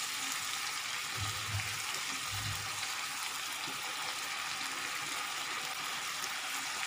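Watery masala gravy with stuffed brinjals heating on high flame in a nonstick pan, giving a steady sizzling hiss as it comes up to the boil, while a spatula is pushed through it. A couple of soft low bumps come about a second and two and a half seconds in.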